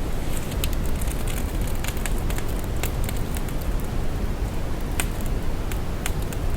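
Steady deep brown noise, much stronger in the low end, with soft crackles scattered irregularly over it.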